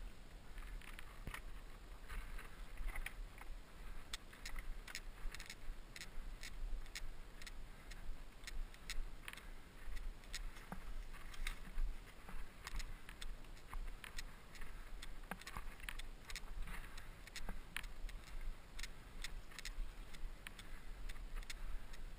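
Mountain bike ridden over rough ground: irregular clicks and rattles, several a second, over a low steady rumble.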